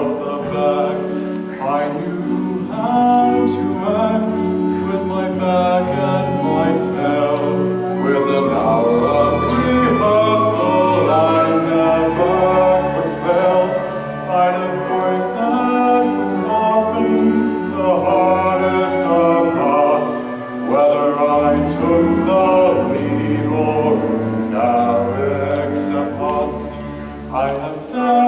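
Live musical-theatre accompaniment with singing over it.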